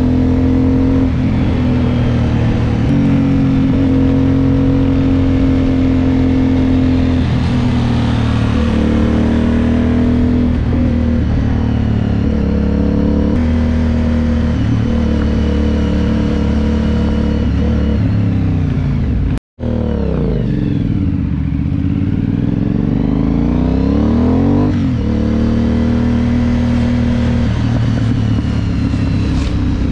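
Aprilia Dorsoduro 750's V-twin engine running under way, heard onboard, its note stepping up and down several times with the throttle. The sound cuts out for a split second about two-thirds through, followed by a few seconds of crossing rising and falling tones.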